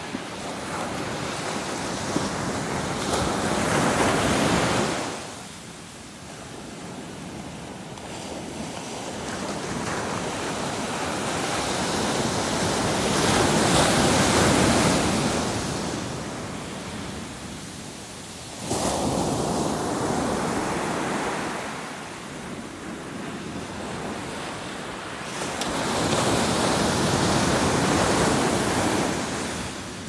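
Atlantic surf breaking on a sandy beach and washing up the shore. It swells and ebbs in four long surges, and one wave breaks suddenly about two-thirds of the way through.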